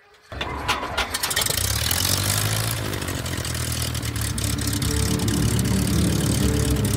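Light airplane's propeller piston engine starting after the "Clear prop" call: a few sharp uneven firings as it catches, then a steady run that grows gradually louder.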